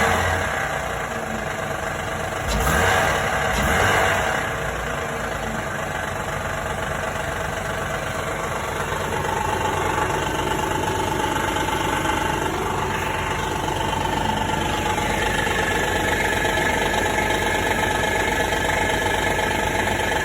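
2016 Honda Odyssey's 3.5-litre V6 running cold with a rapid knocking, the cold-engine knock the owner is recording. It swells louder twice a few seconds in, and a steady whine joins about halfway through.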